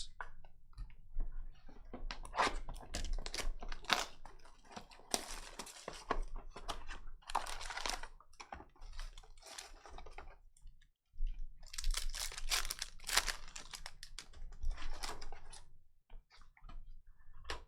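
Trading-card pack wrappers being torn open and crinkled, with many quick clicks and rustles as the cards are handled and flipped through.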